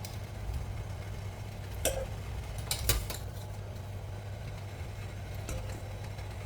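A few clinks and knocks of kitchen utensils against dishes: one ringing clink about two seconds in, then a quick double knock about a second later, over a steady low hum.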